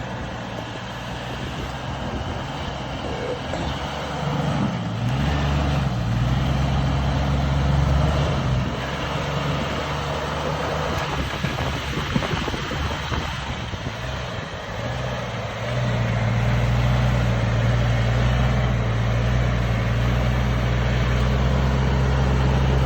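Off-road vehicle's engine pulling under load, its revs rising about five seconds in, easing off in the middle, then picking up again and holding steady near the end.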